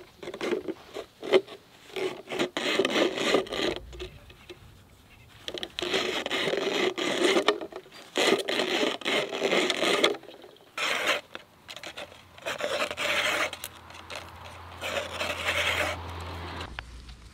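A clear plastic bottle being cut into a long continuous strip with a small hand-held bottle cutter, the plastic scraping and crinkling against the blade in repeated pulls of a second or two with short pauses between.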